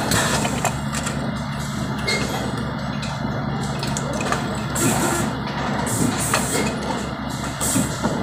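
Steady hum of factory machinery, with scattered light clinks of small metal parts being handled and dropped into plastic trays.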